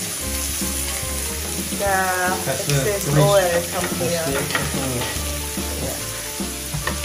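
Onion slices and steaks sizzling as they fry on a hot electric grill plate. A song with a singing voice plays over it, loudest from about two to five seconds in.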